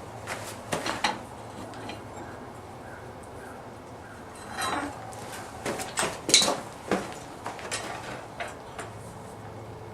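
Scattered light clinks and knocks of steel being handled, the sharpest clinks about six to seven seconds in, one ringing briefly.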